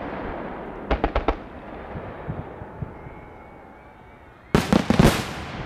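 A big fireworks display going off: a quick run of three or four sharp bangs about a second in, a low rumble, then a louder cluster of bangs near the end.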